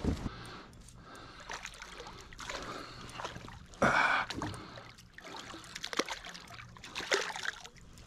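Water splashing and trickling beside a kayak as a hooked smallmouth bass is scooped into a landing net, with scattered knocks from the net and gear. A louder splash comes about four seconds in.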